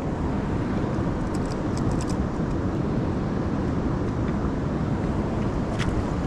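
Steady rushing of flowing river water, with a few faint clicks and taps.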